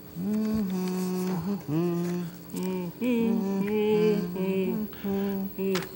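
A voice humming a tune in a series of short held notes.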